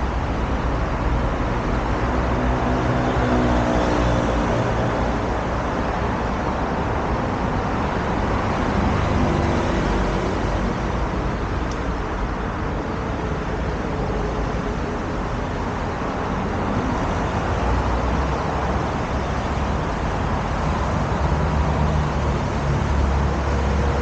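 Steady road traffic on a wide multi-lane road: cars passing with a continuous hiss of tyres and engines. A vehicle's engine hum rises and falls a few seconds in, and heavier low rumbles of passing vehicles come near the end.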